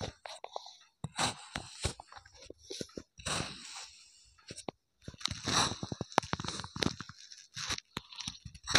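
Kinetic sand crunching and crumbling as a metal melon-baller scoop presses and cuts into it. It comes as a series of short grainy crunches with sharp clicks, separated by brief silences.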